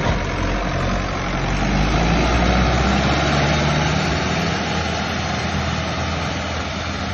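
Sonalika DI 60 tractor's diesel engine running hard as it hauls a heavily loaded trailer across soft ploughed soil. It gets a little louder about two to three seconds in.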